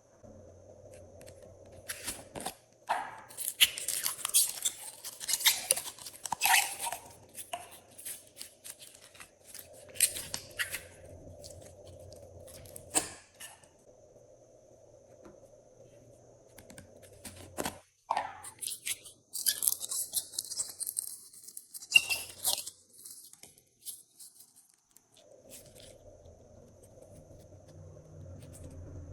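Glossy slime being handled, squished and stretched, with irregular bursts of crackling and sharp popping clicks.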